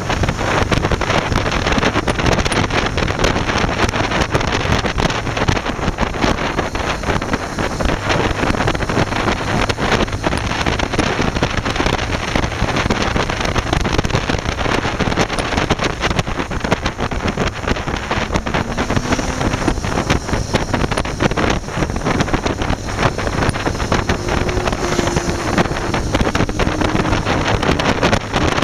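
Heavy wind buffeting on a motorcycle-mounted microphone at road speed, with the motorcycle's engine running steadily underneath.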